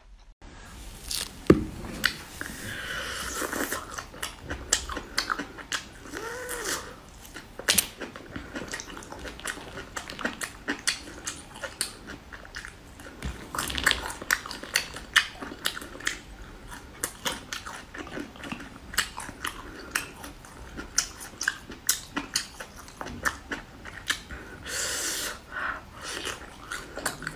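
A person chewing and biting food close to the microphone: many short, irregular wet clicks and smacks, with some crunching.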